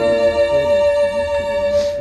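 Recorded violin music playing through a hi-fi system with horn loudspeakers. The violin holds one long note while lower notes move beneath it.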